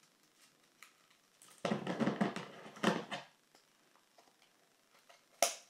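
Hands handling craft materials close to the microphone: a burst of rustling and handling noise lasting about a second and a half, then a single sharp click near the end.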